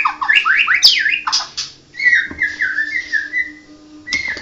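White-rumped shama (murai batu Medan, blorok variety) singing: a quick run of rising and falling whistled notes, a short pause, then a falling series of notes and a fresh sweep near the end.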